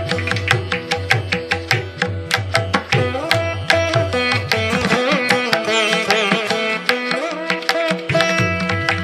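Background instrumental music in Indian classical style, with drum strokes under a plucked-string melody.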